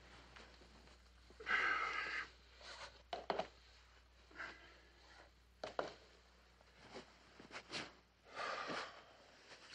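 A man breathing heavily in two long exhalations, one near the start and one near the end, with a few small knocks and rustles as he moves about on a bed.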